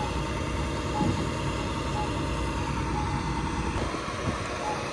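Steady traffic rumble of idling and passing vehicles at the intersection. Over it, a short faint beep repeats about once a second: the locator tone of a Campbell accessible pedestrian signal push-button during the wait interval.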